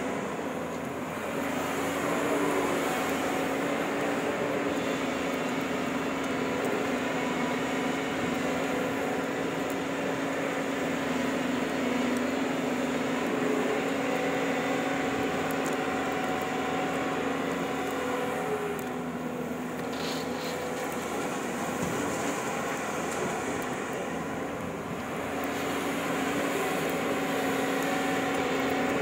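Excavator's diesel engine running steadily while digging and loading, easing off briefly about a second in and twice in the second half.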